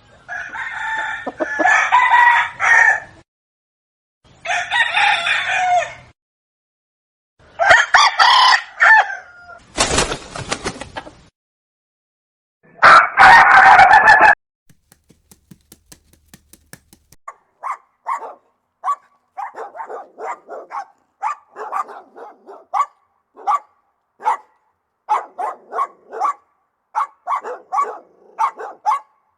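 A rooster crowing about four times in long calls, followed in the second half by a run of short, quieter clucking from chickens.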